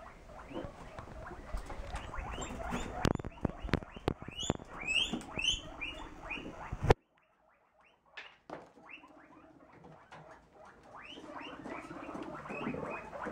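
Baby guinea pig purring: a rapid, pulsing run of short repeated calls. A few sharp clicks come about three to four seconds in. The sound cuts off abruptly near seven seconds and the purring picks up again about a second later.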